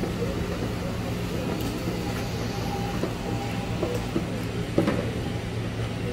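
Steady low hum of commercial kitchen equipment around a deep fryer and gas range, with a few light clicks and knocks from handling a plastic tub of battered octopus, the sharpest knock just before the end.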